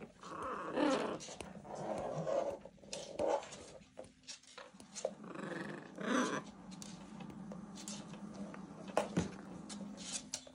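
Macaws giving harsh, rough calls at each other in several short bouts, the clearest around two seconds in and around six seconds in, with scattered sharp clicks between them.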